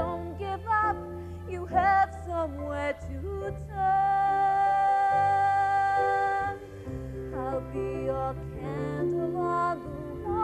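A woman singing a ballad solo with live orchestral accompaniment, her voice gliding between notes and holding one long note for nearly three seconds partway through.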